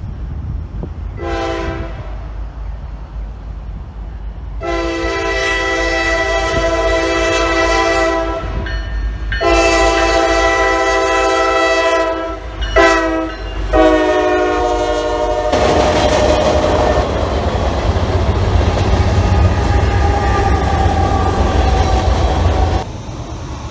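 Norfolk Southern diesel freight locomotive's multi-tone air horn: one short toot, then long, long, short, long, the standard grade-crossing signal. The lead locomotives then pass close by with a loud rumble of engines and wheels, which cuts off suddenly near the end.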